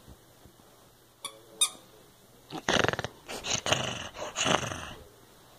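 Small long-haired dog growling in play over a plush toy, in three rough runs over about two and a half seconds, after two brief high squeaks about a second in.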